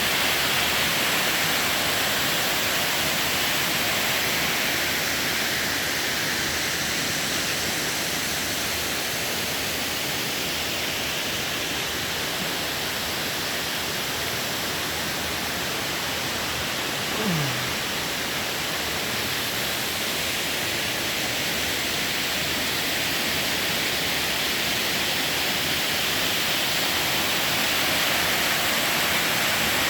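Waterfall: water pouring and rushing in a steady, unbroken roar of spray and splash. About halfway through, a brief falling tone sounds over it.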